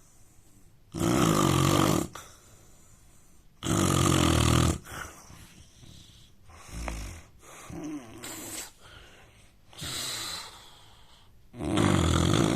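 A man snoring: three loud snores about a second long each, with softer breaths and snuffles in the longer gap between the second and the third.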